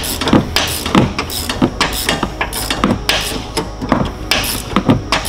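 Ratchet wrench being swung back and forth on a sway bar end link nut, clicking in short runs about three times a second.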